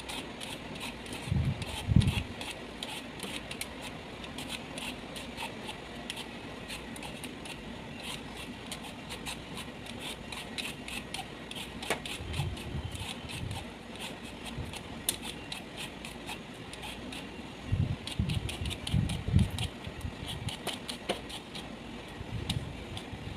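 Knife peeling the rind off a kalabasa (squash) held in the hand: a quick, irregular run of short scraping and cutting clicks. A few low thuds of the squash being handled come about two seconds in, around the middle, and a little after three-quarters through.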